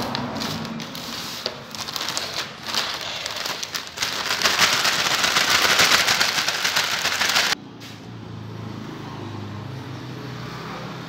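Natural-fibre grass broom's bristles sweeping across a hard floor: a dense, scratchy swishing that gets louder and cuts off suddenly about seven and a half seconds in. After that only a low steady hum remains.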